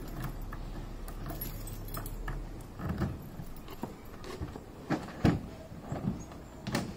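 Scattered clicks and knocks from hands working the plastic mounting clamps of a Thule Motion XT XXL roof box on the car's roof bars, the sharpest about five seconds in.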